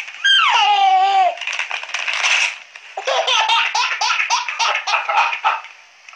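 Baby laughing hard: a long falling squeal near the start, then breathy bursts and quick runs of giggles.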